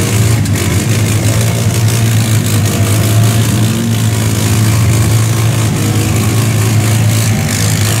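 Off-road vehicle engine running steadily with a low, even drone.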